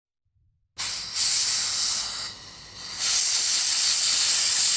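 Hissing spray cleaning metal chips off a thread tap, starting about a second in. It dips briefly near the middle, then a longer steady blast follows from a compressed-air blow gun.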